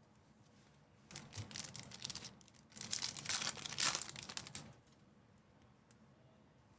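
Crinkling of a trading-card pack's foil wrapper as it is handled. The crinkling comes in two spells: one starting about a second in, and a longer one from about three to four and a half seconds.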